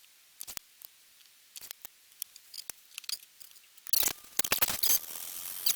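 Hands working with small objects at a work bench: scattered light clicks, then denser rustling and scraping with sharp clicks from about four seconds in.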